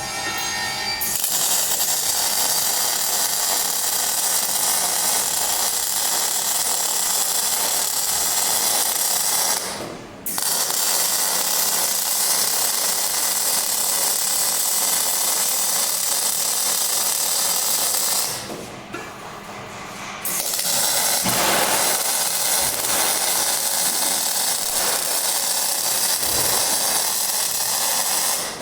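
Electric arc welding: a steady, loud crackling hiss of the arc, in three long runs broken by a brief stop about ten seconds in and a pause of a couple of seconds around the two-thirds mark.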